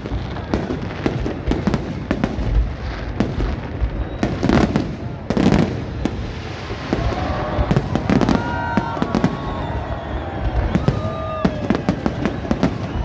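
Many fireworks going off: a dense, irregular string of sharp bangs and crackles over a continuous rumbling din.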